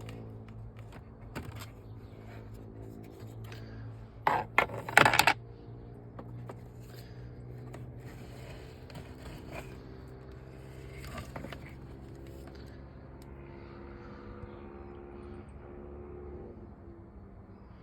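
Scraping and clicking of parts being handled, most likely a cabin air filter and its plastic housing, with one loud scrape about four to five seconds in. A steady low hum runs underneath.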